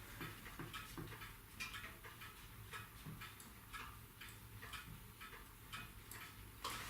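Faint, irregular light clicks and taps, one to three a second, over a low steady hum.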